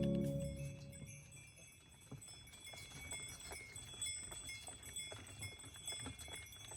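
Harness bells on a carriage horse jingling faintly, with soft irregular knocks of the horse's hooves. Background music fades out in the first second.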